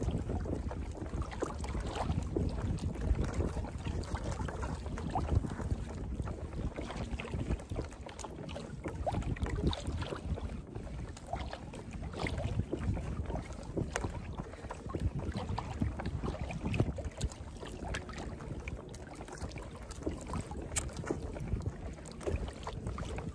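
Wind rumbling on the microphone over water lapping and slapping against a kayak's hull on choppy water, with scattered small splashes and knocks.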